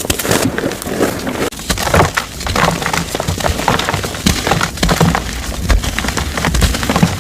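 Dyed gym chalk being crushed and crumbled, a dense, continuous crunching and crackling.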